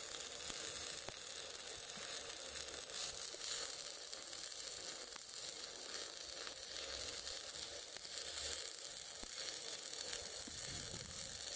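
Electric arc welding on the steel axle housing of a dump truck: a steady crackling sizzle from the arc as a bead is laid along the repair.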